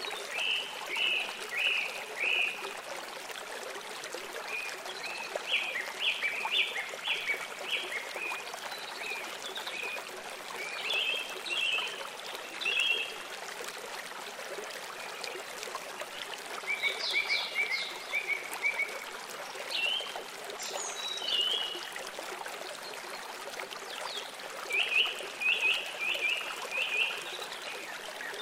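Steady rush of flowing water, with about six bursts of rapid chirping calls from a small animal. Each burst is a quick run of short, high notes lasting one to three seconds.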